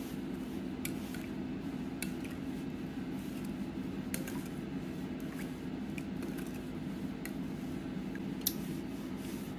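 A metal spoon stirring a thin liquid dressing in a ceramic bowl, with a few light clinks against the bowl over a steady low hum.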